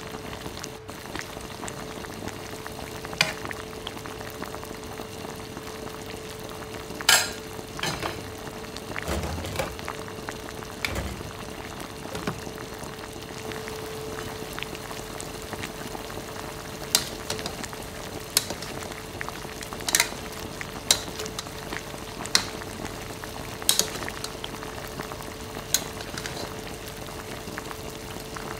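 Chicken pieces frying in a pan, sizzling and bubbling steadily. A spatula clicks and scrapes against the pan now and then as the pieces are stirred. A steady faint hum sits underneath.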